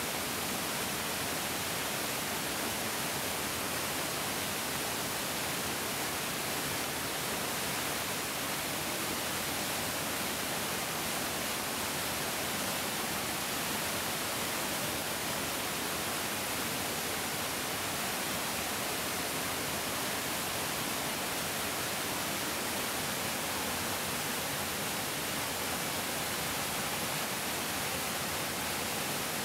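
Large mountain stream flowing: a steady, unbroken rush of water with a strong hiss.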